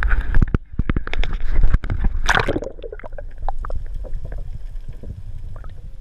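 Water gurgling and sloshing around a kayak, with many small knocks and clicks over a steady low rumble, and a brief louder rush of noise a little over two seconds in.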